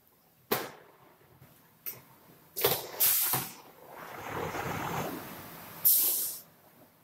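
Pallet adhesive sprayed from an aerosol can onto a screen-printing platen: short hissing spray bursts about three seconds in and again near the end, with a couple of sharp clicks before them and a duller rustling in between.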